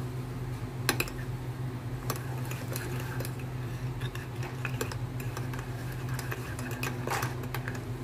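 Metal spoon stirring frothy coffee and milk in a ceramic mug, clinking lightly against the sides now and then. A steady low hum runs underneath.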